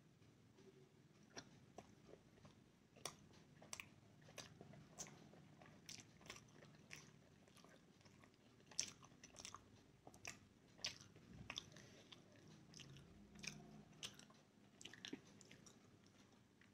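A person chewing a mouthful of momo dumplings: faint, irregular wet clicks and smacks of the mouth.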